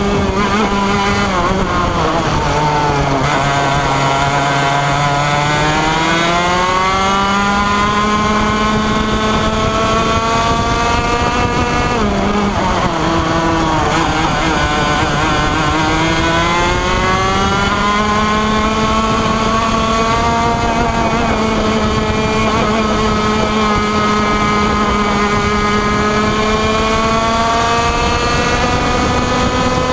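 Onboard sound of a 125cc two-stroke racing kart engine at race pace. The revs drop twice as the kart slows for corners, about a second in and again around twelve seconds in, and climb back each time under acceleration. They then hold high down the straight, over wind noise on the microphone.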